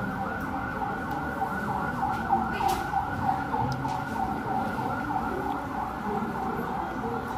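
A steady, evenly repeating warbling tone, pitched in short quick swoops like a siren or a looped synth figure.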